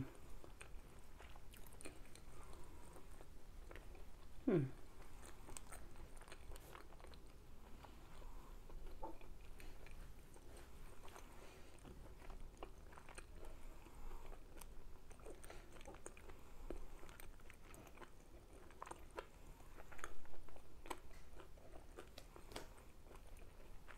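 Close-miked chewing of Chinese takeout food with the mouth closed: soft wet clicks and light crunches, with a brief falling tone about four and a half seconds in.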